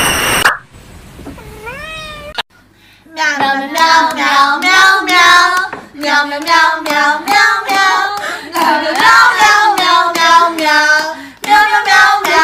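A high voice singing a birthday song in long held notes, starting about three seconds in. Before it there is a short stretch of steady noise, cut off suddenly, and a few faint warbling tones.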